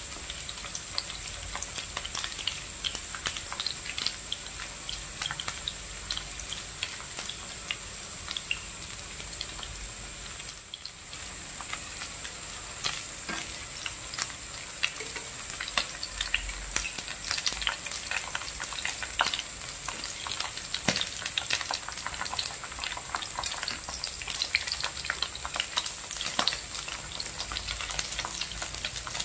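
Chunks of green eggplant frying in hot oil in a nonstick pan: a steady sizzle with dense crackling and spitting.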